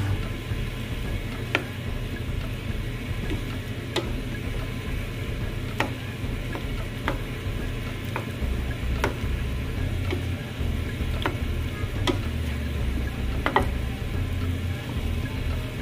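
Wooden spatula stirring and tossing udon noodles and vegetables in a stainless steel frying pan, knocking against the pan every second or two.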